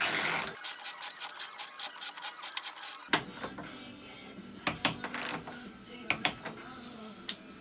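A ratchet wrench clicking rapidly and evenly, about eight clicks a second for two and a half seconds, as bolts holding the radiator are run down. A short noisy burst comes at the start, and scattered tool clicks and knocks follow.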